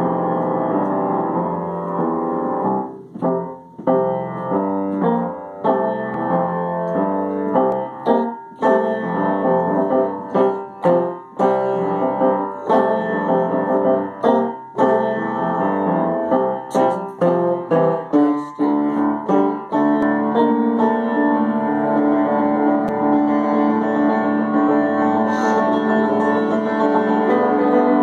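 Instrumental keyboard music: a run of separately struck notes and chords, settling into held, sustained chords for the last several seconds.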